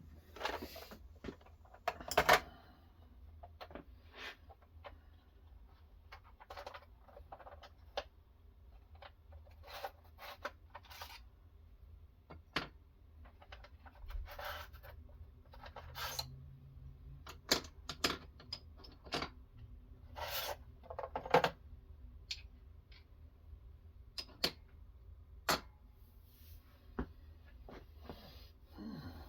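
Scattered clicks, taps and a few short scraping strokes of a clamp-type knife sharpening system and its stones being handled and set up, over a steady low hum.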